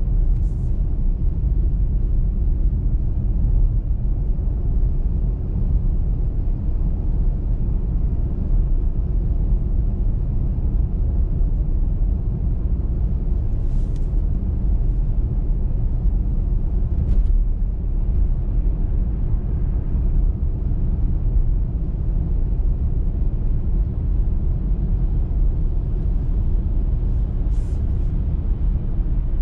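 Steady low rumble of a car driving on a snowy motorway: tyre and engine noise with no change in speed. A few faint short ticks stand out now and then.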